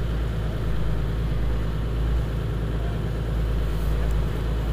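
Rigid inflatable boat under way through choppy water: a steady engine drone over the rush of wind and water.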